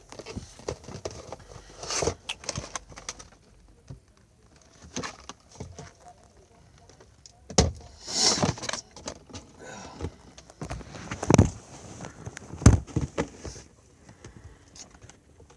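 Irregular handling noises: a string of clicks, knocks and short rustles, with a few louder thumps in the second half.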